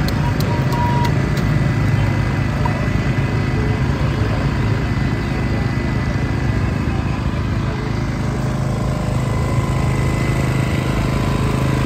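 An engine running steadily with a low drone. A few sharp taps of a steel ice pick chipping a block of ice sound in the first second or so.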